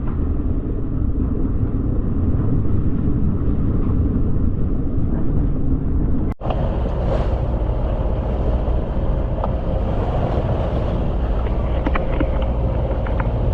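Gale-force wind buffeting the microphone aboard a sailboat in a squall, a dense low rumble with a brief dropout about six seconds in and a faint steady hum after it.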